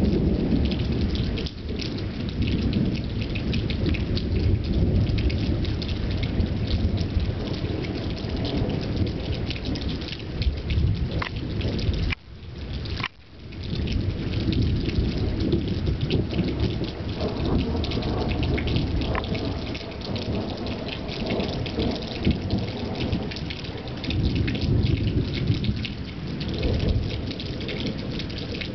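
Thunderstorm: steady rain with dense pattering drops over low, rolling thunder. The sound cuts out briefly about twelve seconds in.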